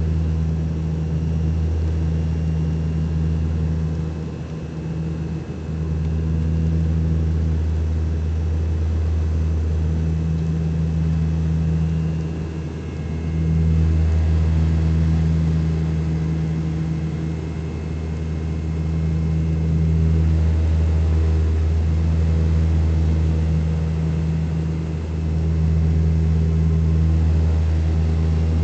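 Turboprop airliner's engines and propellers droning, a steady low hum that dips briefly a couple of times.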